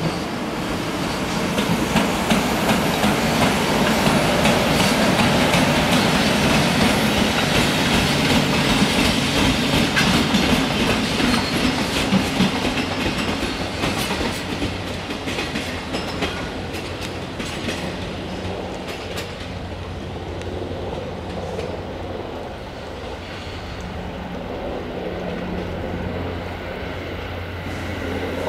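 EF66 electric locomotive hauling a dead EF64 locomotive and one empty container flatcar pulls away and passes, its wheels clicking over rail joints and points. It is loudest in the first half and then fades, leaving a steady low hum.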